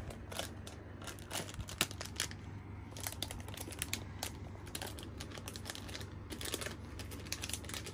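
Foil blind-box pouch crinkling as it is pulled open and handled, a continual run of small sharp crackles.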